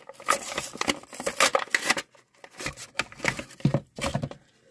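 A Hot Wheels mystery model's blind-bag package being torn and crinkled open by hand, in quick rips and rustles, with a short pause about halfway through before more handling.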